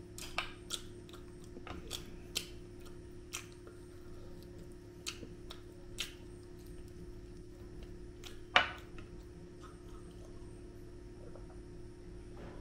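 A person chewing tandoori chicken close to the microphone, with scattered wet mouth clicks and smacks, the loudest about two thirds of the way through, over a steady low hum.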